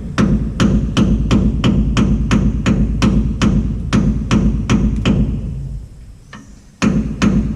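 Hammer blows struck at a steady pace of about two and a half a second. They stop about five seconds in and start again a second and a half later.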